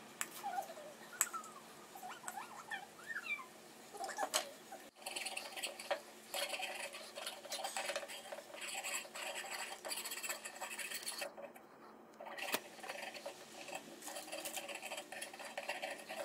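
Cast sterling silver pendant rubbed back and forth on a hand file: a run of rasping filing strokes from about five seconds in, with a short pause near the middle. Before that, a few short squeaks and light knocks.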